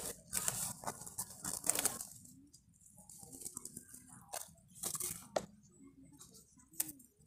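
Rice paddy herb stems rustling and snapping as a small knife cuts through a handful of them: a dense run of crisp crunching and tearing, then a few separate sharp snaps in the second half.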